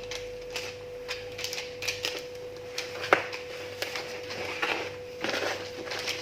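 Spatula scraping and tapping in a baking tray while spreading sponge-cake batter: a string of light clicks and scrapes, with one sharper knock about three seconds in.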